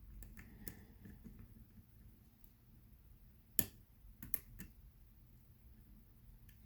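Faint small clicks of a deep hook lock pick working the pins inside a pin-tumbler lock under tension, with one sharper click about three and a half seconds in and a few lighter ones just after.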